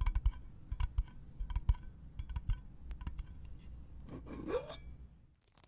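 Cotton wiping and dabbing right at the microphone's ear, heard close-up as scratchy rubbing with irregular soft taps and low thumps.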